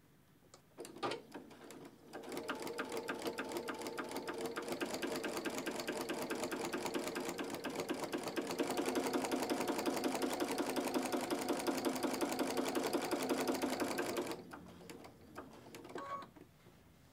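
Sewing machine fitted with a walking foot sewing a long basting stitch through three layers: quilt block, fusible batting and backing fabric. It starts about two seconds in, runs with a fast, even needle rhythm that gets a little louder halfway through, and stops shortly before the end. A few light handling clicks come before and after the stitching.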